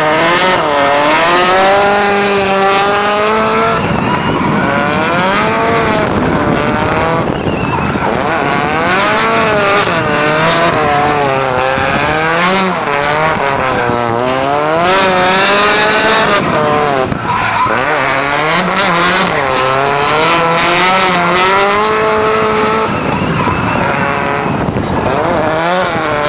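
Drift car's engine revving hard, its pitch rising and falling over and over as the throttle is worked through the slides. Tyres squeal in spells several times throughout.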